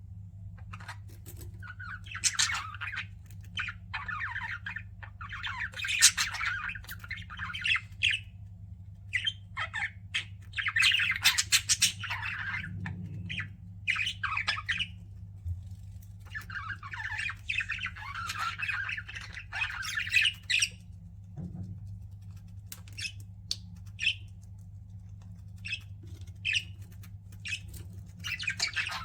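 Pet budgerigars chattering and chirping in bouts of warbling calls a few seconds long, broken by short single chirps and squawks, over a steady low hum.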